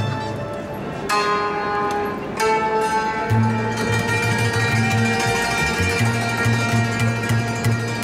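Instrumental folk music: a string instrument playing ringing plucked notes, with a low bass line coming in about three seconds in.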